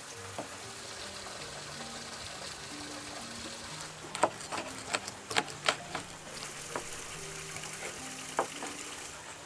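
Kitchen knife knocking against a wooden cutting board while a fish is cut up: a quick run of about five sharp knocks about four seconds in, then two more later, over soft background music.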